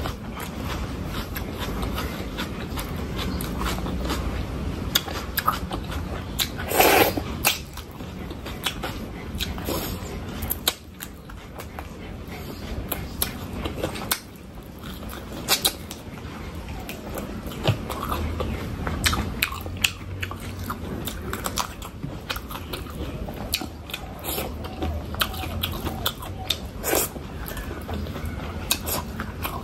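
Close-miked eating: steady chewing and biting of food with many short, sharp mouth clicks, and one louder burst about seven seconds in.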